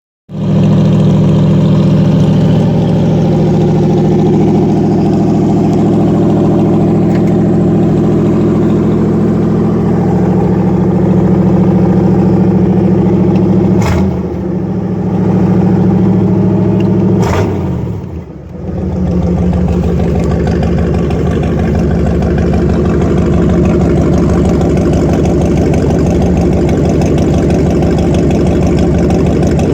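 1975 Ford F-150's 351M V8 running through new Thrush glasspack mufflers on a dual exhaust, a steady loud exhaust note. Its pitch dips and recovers twice near the middle.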